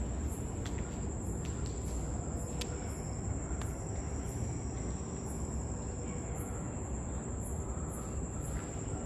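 Crickets chirping at night: a steady high trill with a second chirp pulsing nearly twice a second, over a steady low rumble.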